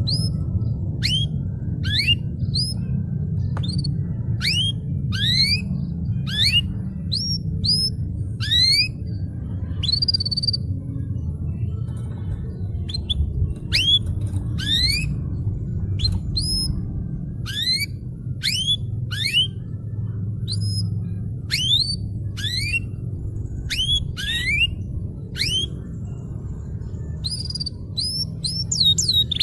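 Domestic canary singing a long run of upward-sweeping whistled notes, about one a second, with a brief pause partway through. A steady low hum runs underneath.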